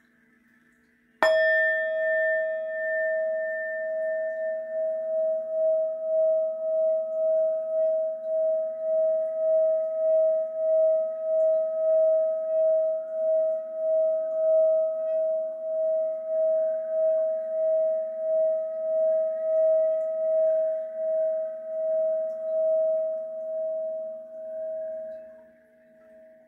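Hand-held metal singing bowl struck once with its wooden striker about a second in, then kept singing as the striker is rubbed around the rim: one steady ringing tone that swells and dips in an even pulse and fades away near the end.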